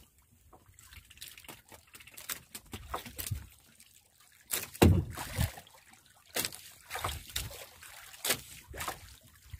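Sea water sloshing and dripping at the side of a small wooden outrigger boat while a wet fishing handline is hauled in hand over hand. Scattered knocks are heard, with one louder thump about five seconds in.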